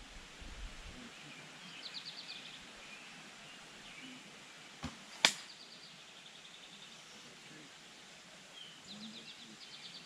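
An arrow shot from a traditional bow: a soft snap of the string about five seconds in, then a sharp, louder smack half a second later as the arrow strikes the target. A bird trills several times in the background.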